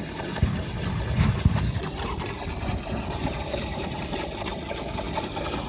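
Small gasoline pump engine running steadily, powering a beach-mining suction nozzle, with a few low thumps in the first second and a half.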